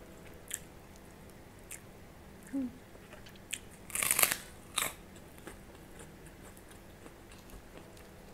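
Close-up eating sounds of a puffed kerupuk cracker being bitten: a loud crisp crunch about four seconds in, a second crunch just after, and a few faint clicks before it.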